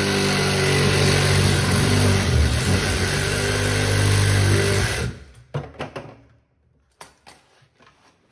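Cordless reciprocating saw (Sawzall) cutting a 1.5-inch plastic sink drain tailpiece to length. It runs steadily for about five seconds and stops, then a few light knocks and clicks follow.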